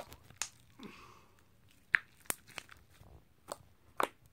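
Homemade slime, gone slippery with added scent, being kneaded by hand: irregular sharp pops and clicks.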